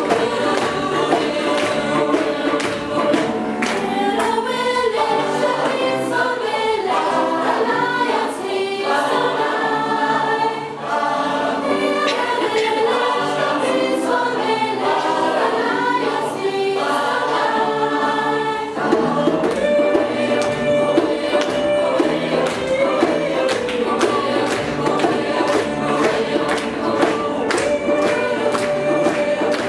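Large mixed choir singing in harmony, with a steady beat of sharp strokes underneath that comes through more strongly about two-thirds of the way through.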